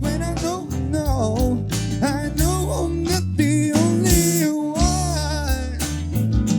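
Live band music in a slow pop-ballad style: bass, drums and guitar under a gliding melody line.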